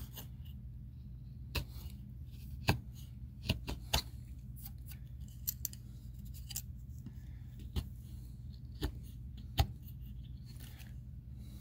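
Folding knife blade shaving slivers off a hardwood hatchet handle: a dozen or so short, sharp scraping cuts at uneven intervals. The handle is being trimmed to fit the hatchet head.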